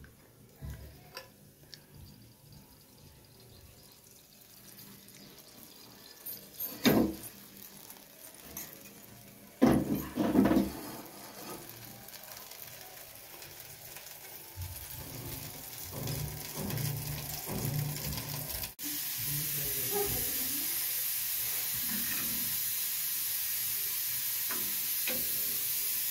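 Kitchen handling sounds: scattered knocks and clatter of cooking pots and lids, loudest around a quarter and two-fifths of the way through. In the last seven seconds there is a steady hiss.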